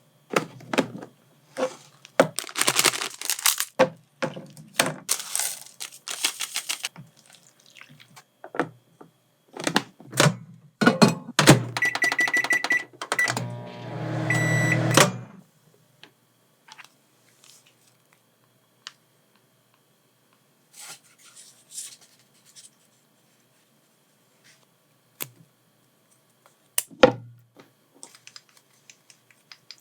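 Instant-noodle packaging and bowl being handled with rustling, clicks and knocks. Then a series of short, evenly pitched beeps from the microwave oven's keypad, followed briefly by a low hum. Afterwards it is mostly quiet, with scattered small clicks and one sharp clack near the end.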